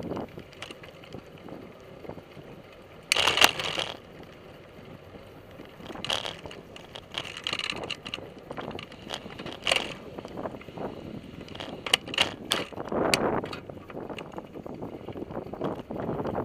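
A bicycle being ridden, heard from a camera mounted on it: wind noise with frequent rattles, clicks and knocks from the frame and fittings over the path. There is a loud rattling clatter about three seconds in.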